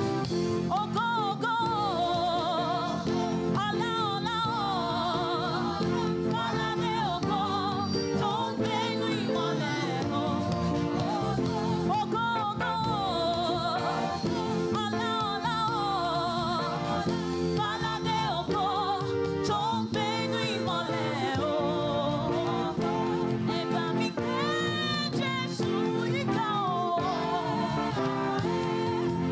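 Live gospel praise music: a voice sings a melody with a wavering vibrato over steady, sustained instrumental chords.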